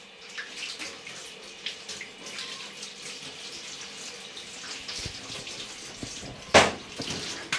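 Water running from a kitchen tap into a sink, with light clinks as dishes are handled under it, and one loud clatter about a second before the end.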